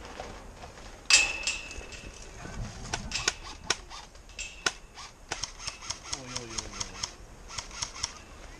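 Airsoft guns firing. A sharp, loud crack about a second in rings briefly, then come scattered single shots and quick bursts of rapid clicks.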